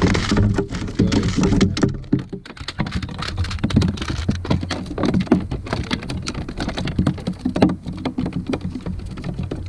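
Water slapping and splashing against a plastic kayak hull close to the microphone: a loud, dense, irregular patter of small knocks and splashes over a low rumble.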